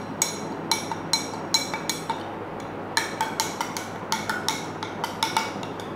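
A spoon stirring in a glass, clinking against its sides in a quick, irregular run of ringing taps, with a pause of about a second partway through before the clinking resumes.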